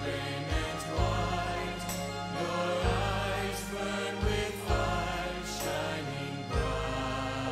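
Christian praise-and-worship song playing: sustained chords over a bass line that changes note every second or so.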